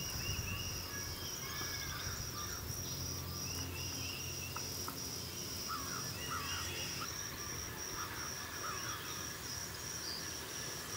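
Outdoor insect chorus: a cricket-like insect chirps in a steady high-pitched pulse, about three pulses a second, and stops about seven seconds in. Faint short bird chirps and a low steady hum sit underneath.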